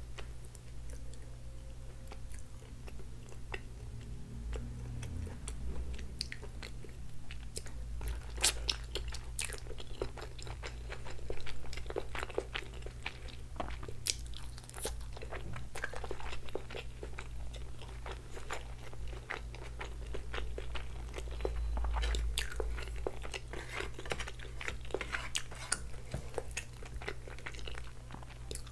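Close-miked eating: biting and chewing a steamed chicken momo, with many small mouth clicks.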